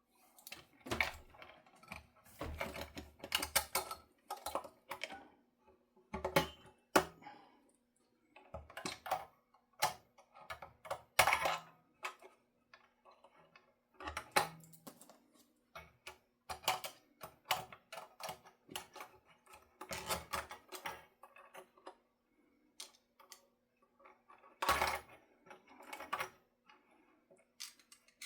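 Irregular small metallic clicks, taps and scrapes of hand work on a guitar body, as tremolo springs and hardware are fitted with pliers. A faint steady hum runs underneath.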